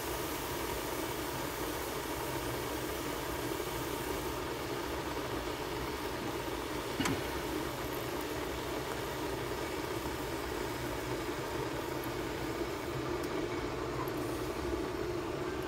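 Steady low hum with an even hiss, over hot cooking oil lightly bubbling in a nonstick frying pan on the stove; one sharp click about seven seconds in.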